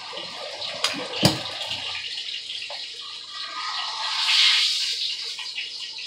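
Oil sizzling steadily in a cast-iron skillet on a gas stove, with two sharp knocks a little under half a second apart about a second in. Around the middle the sizzle swells louder for a second or so, as a corn tortilla goes into the hot oil.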